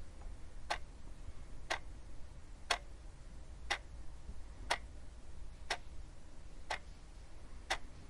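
A clock ticking once a second: single, evenly spaced sharp ticks over a steady low hum.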